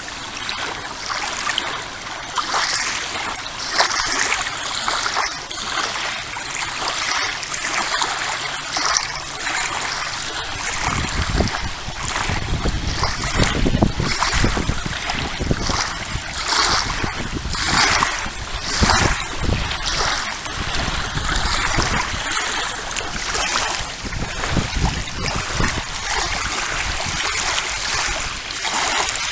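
Small river waves on the Volga lapping and splashing against the shore, an uneven wash of water noise that swells and falls every second or two. A low rumble joins about a third of the way in.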